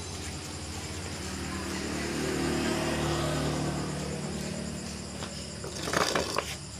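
Motorcycle engine idling steadily, running again after a new spark plug cured its breakdown. A few knocks and rattles come near the end, and crickets chirp in the background.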